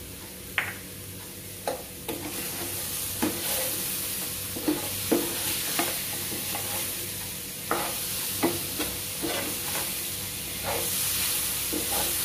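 Diced ripe nendran banana sizzling in ghee and sugar in a nonstick frying pan while a wooden spatula stirs it, scraping and knocking against the pan at irregular intervals. The sizzle grows louder about two seconds in.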